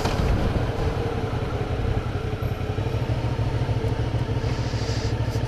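Suzuki V-Strom 650XT motorcycle's 645 cc V-twin engine running steadily at low revs as the bike rolls slowly onto a petrol station forecourt.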